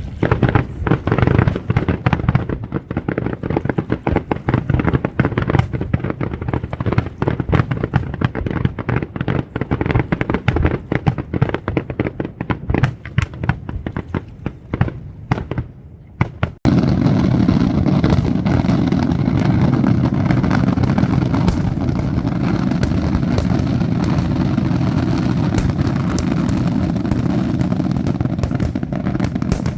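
Large aerial fireworks display: a rapid, dense string of shell bursts and bangs. About halfway through, after a sudden break, the bursts merge into an almost unbroken din with fine crackling on top, as in a finale barrage.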